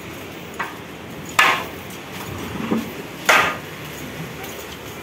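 A few sharp knocks or blows, the two loudest about two seconds apart with fainter ones between them, over a steady background noise.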